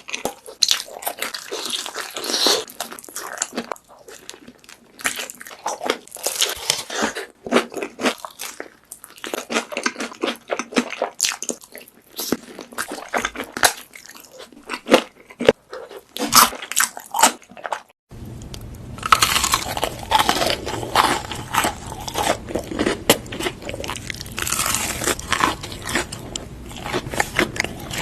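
Close-miked crunching bites and chewing of crispy food, a dense run of irregular crunches. About two-thirds of the way through, a steady low hum comes in under the crunching.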